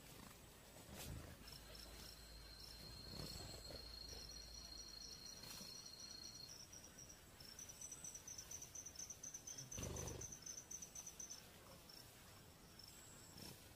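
Faint forest insects calling: a thin, steady high-pitched tone joined by a fast, evenly pulsed high trill that stops about eleven seconds in. There is a soft low thump about ten seconds in.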